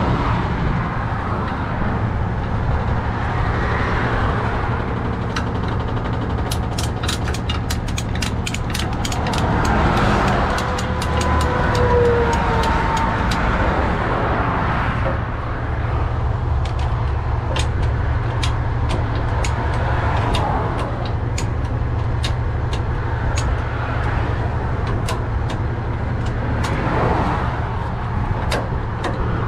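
Ratchet strap being cranked tight around an axle on a tow truck's wheel-lift: a fast run of sharp metallic clicks several seconds in, then slower single clicks later on. Under it a truck engine idles steadily.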